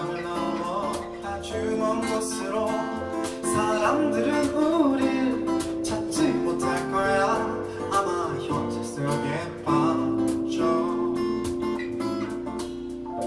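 Live band playing a pop song: a male voice sings over a strummed acoustic guitar and electric bass.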